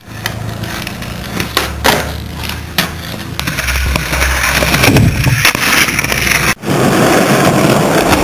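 Skateboard wheels rolling on concrete, with a few sharp clacks of the board striking the ground in the first few seconds. The sound drops out abruptly about two-thirds of the way through, then comes back as louder, closer rolling.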